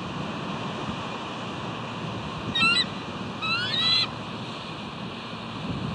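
Bald eagle calling: a short burst of high, chattering notes about two and a half seconds in, then a longer run of rising, piping notes that ends about four seconds in. Under it runs a steady rush of wind and surf.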